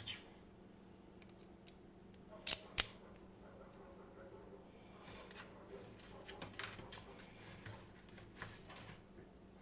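Sharp metallic clicks and clinks from an ABUS D10 dimple lock cylinder being taken apart: two loud clicks about two and a half seconds in, then a scatter of lighter clicks and small rattles later on.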